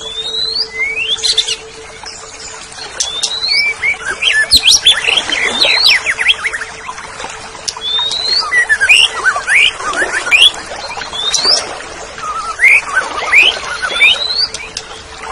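Green leafbird (cucak ijo) singing: a fast, varied run of rising whistled notes and chattering phrases, over a faint steady hum.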